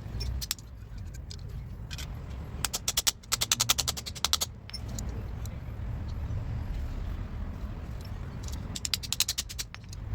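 Three quick runs of small sharp taps or clicks, about ten a second: a short run a few seconds in, a longer one just after it, and another near the end. A steady low hum runs underneath.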